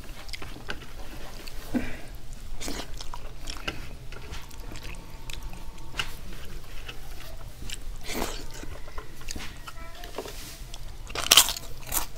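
Close-up eating sounds: a man chewing mouthfuls of rice and dal eaten by hand, with scattered short clicks and wet mouth sounds. Near the end comes one loud, sharp crackle, from crisp fried papad being broken.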